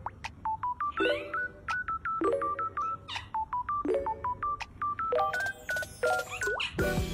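A playful electronic backing tune of quick beeps and clicks hopping between a few pitches, like phone-keypad tones, with a short low chord about every second and a half. The notes grow denser and fuller near the end.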